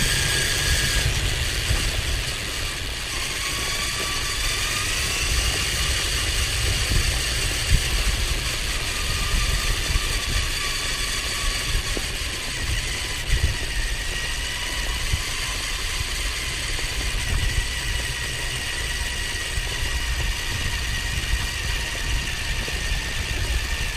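An RC car's small electric motor and gearbox whining, the pitch drifting slowly up and down as its speed changes, over a steady low rumble.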